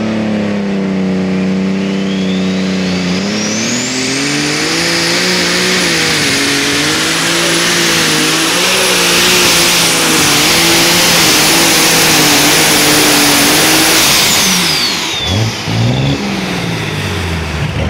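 Pulling tractor's engine working hard under load, with a high whistle that climbs over about two seconds, holds steady for about nine seconds, then falls away as the engine winds down; near the end the engine note drops and blips a couple of times.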